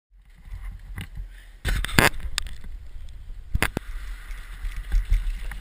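Mountain bike clattering over rocks and roots, heard from a helmet camera with a steady low wind rumble on the microphone. Several sharp knocks come about two seconds in and again past the middle.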